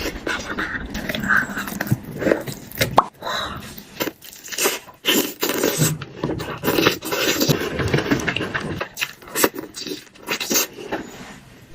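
A person chewing and crunching food close to the microphone, with irregular sharp crunches, clicks and scrapes.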